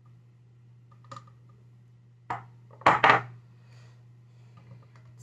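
Hard parts of a massage gun being handled and set down during reassembly: a light click, a knock, then a loud double clatter about three seconds in, over a low steady hum.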